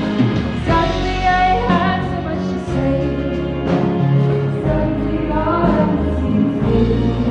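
A band playing a song with a singer: sustained instruments and bass under a sung melody.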